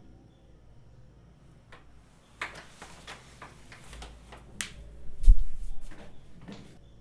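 Bedding rustling as a person shifts and gets up out of bed, with a heavy thump about five seconds in, then more rustling.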